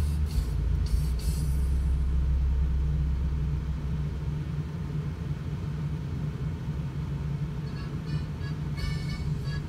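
Steady low rumble of a vehicle heard from inside its cab, with music faintly heard at the start and again near the end.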